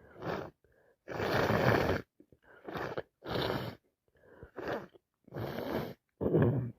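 A woman with a heavy head cold making a run of breathy nasal noises, about seven in a few seconds, the loudest lasting about a second a little after the start.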